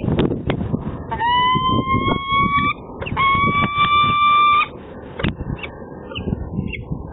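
Peregrine falcon giving two long, drawn-out wailing calls, each about a second and a half; the first rises slightly in pitch and the second holds steady. A low rumbling noise runs underneath.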